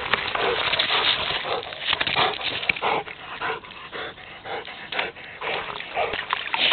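A dog panting and giving short whimpers right at the microphone, with splashing as it paws through shallow water by a rock.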